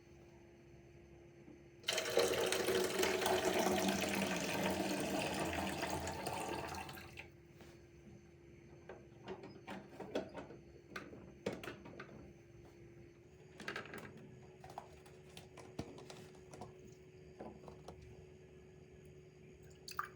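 Water running from a tap, starting abruptly and tapering off after about five seconds, followed by scattered light clicks and knocks.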